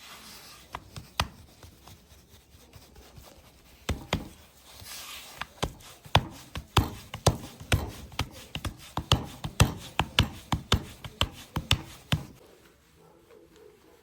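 Sharp knocks or taps, a few scattered at first, then a fast run of about three to four a second for several seconds that stops near the end, with a brief hiss about five seconds in.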